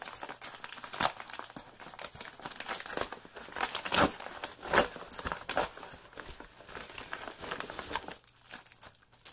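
Padded kraft-paper mailer envelope being torn open by hand: irregular crinkling and tearing of paper, with the sharpest rips about four to five seconds in, thinning out near the end.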